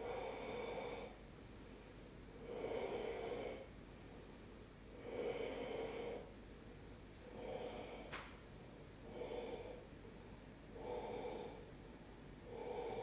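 Ujjayi breathing during ashtanga yoga practice: slow, audible throat-constricted breaths, about seven in all, each roughly a second long with short quieter gaps between. A single faint click comes about two-thirds of the way through.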